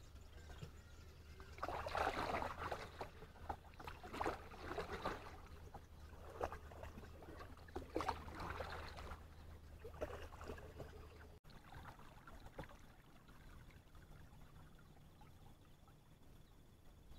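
Kayak paddle strokes: the double-bladed paddle dipping and pulling through the water with a splash and drip about every two seconds. The strokes stop about eleven seconds in, leaving a quieter steady background.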